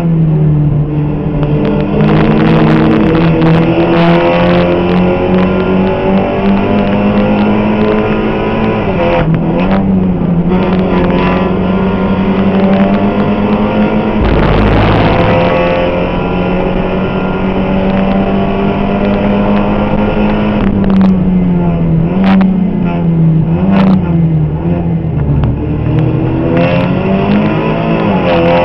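Seat Supercopa race car engine heard from inside the cockpit, running hard at high revs, its pitch dropping and climbing again through braking and gear changes. Sharp knocks come now and then, and a brief rough rumble comes about halfway through.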